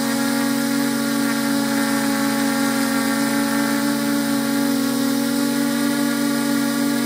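Quadcopter drone's electric motors and propellers running steadily: an even, unchanging whine over a constant rushing hiss.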